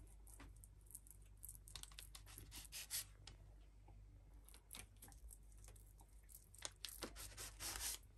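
Faint scraping and crinkling as a kitchen knife cuts through a slab of walnut halwa and presses onto the parchment paper beneath, in short irregular scrapes and ticks over a low steady hum.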